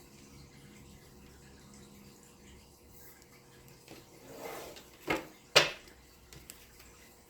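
Tarot cards being handled: a brief rustle, then two sharp snaps a half-second apart, the second the loudest, about five seconds in.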